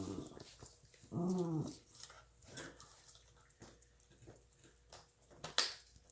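Australian Shepherd dogs: one short, pitched dog call about a second in, then soft, irregular clicks and knocks, typical of a dog chewing on a bone, with a sharper knock near the end.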